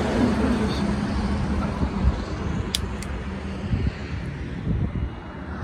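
Steady road-vehicle noise with a low engine hum, and two short clicks about three seconds in.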